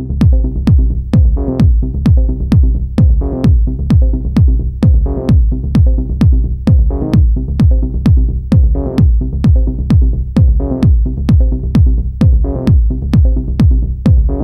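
Electronic dance music with a steady kick-drum beat, a little over two beats a second, over sustained synth chords.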